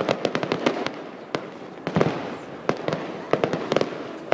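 Fireworks display going off: aerial shells and low-level effects firing in quick succession, a dense run of sharp bangs and crackling reports, with the loudest bang about two seconds in.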